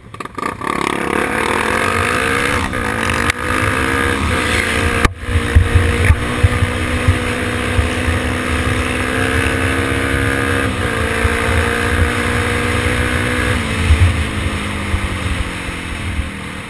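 Single-cylinder four-stroke engine of a Honda XR 250 Tornado trail bike accelerating hard. Its pitch climbs and then drops back at each gear change, with shifts around 3 seconds in and again around 11 and 14 seconds. Wind buffets the helmet-mounted microphone, and there is a sharp click about 5 seconds in.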